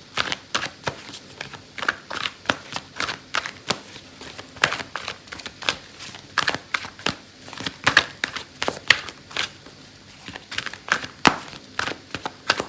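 A deck of cards being shuffled by hand: a long run of short, irregular slaps and rustles, several a second.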